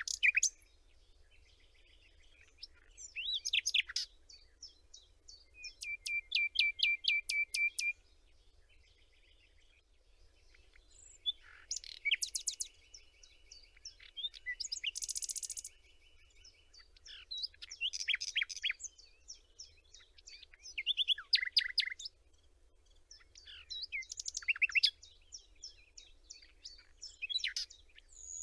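Songbirds singing: a run of varied chirping phrases with short pauses between them, including rapid trills and one longer buzzy trill.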